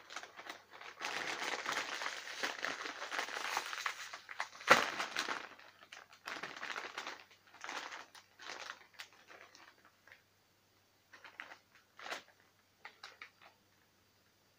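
Potato chip bag crinkling as it is handled and pulled open, with one sharp pop about five seconds in, then shorter rustles.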